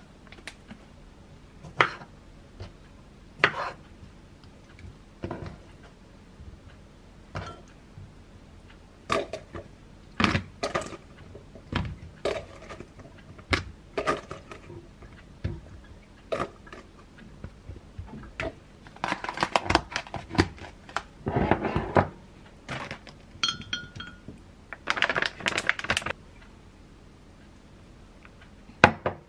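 Kitchen handling sounds: scattered knocks and clinks as a glass cup, a plastic food container and a plastic salad-spinner basket are handled and set down on the counter. Two longer stretches of rustling come about two-thirds of the way through.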